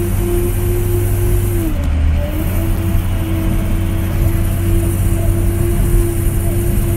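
Ford Power Stroke diesel engine of a plow truck droning steadily, heard from inside the cab. About two seconds in, the engine's pitch dips briefly and then recovers as the revs drop and come back.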